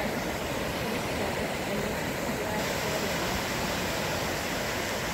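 Fast, turbulent floodwater rushing down a normally dry creek bed in flash flood after heavy monsoon rain: a steady, even rush of water.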